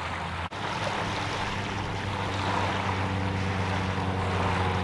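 Motorboat engine running steadily: an even, low hum with a hiss of wind and water over it.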